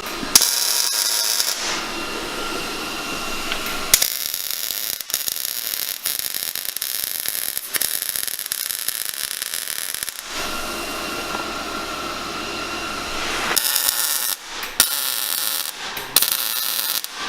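Arc welding on steel truck-suspension parts: a steady dense crackle and buzz, broken into several stretches by abrupt cuts.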